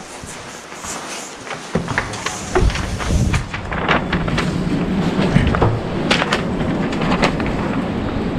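Footsteps and knocks as a door is pushed open. About two seconds in, wind starts rumbling on the microphone outdoors, with more footsteps and clicks over it.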